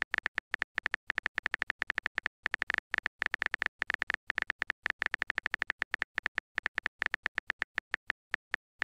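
Rapid typing clicks, roughly ten a second with short pauses, one click for each character of a text message as it is typed out. They stop near the end.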